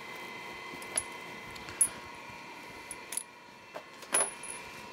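Several sharp metallic clinks of steel parts knocking together as angle blocks and a workpiece are set into a steel machine vise, the loudest about four seconds in, over a steady faint hum.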